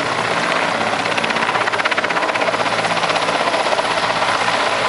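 Helicopter running, its rotor blades chopping in a fast, even rhythm that is clearest around the middle, over a steady engine and rotor noise.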